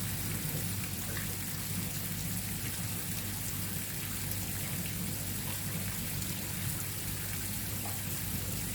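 Steady hiss of falling water, with faint scattered ticks and a low steady hum underneath.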